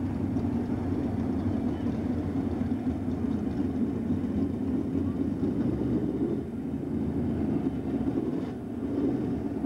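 Several winged sprint car engines running at low speed, a steady mixed drone with short dips about six and a half and eight and a half seconds in.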